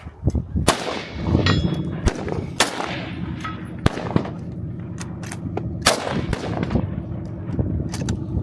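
Firearms being fired at an outdoor range: about five loud shots one to two seconds apart, each with a trailing echo, and fainter shots in between. A steady low hum runs underneath from about a second in.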